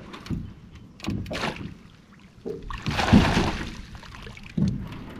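Shallow water splashing as a hooked northern pike thrashes at the surface, in several short splashes with the longest and loudest about three seconds in.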